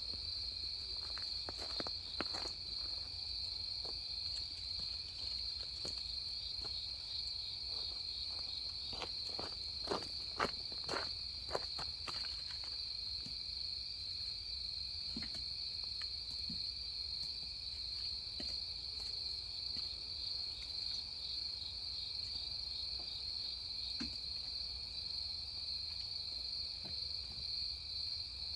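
Autumn night chorus of grass insects chirping, a steady high-pitched trill. A short run of sharp knocks or clicks breaks in about ten seconds in.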